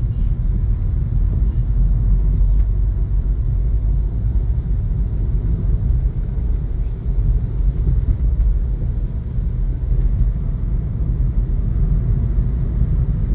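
Car driving steadily on a highway, heard from inside the cabin: an even, low rumble of engine and road noise.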